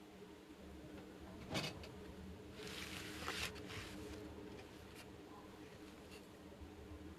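Miniature plastic toy playset being handled close to the microphone: one sharp click about a second and a half in, then about a second of rustling scrape, with a few faint ticks.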